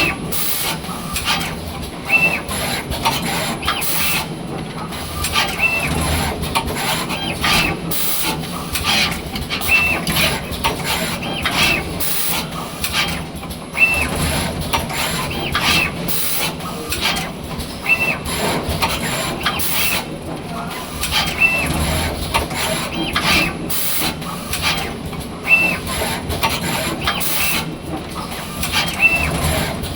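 Automatic wire-soldering machine running through its cycle over and over: mechanism moving and sharp air hisses repeating about once every two seconds, each cycle with a short high tone.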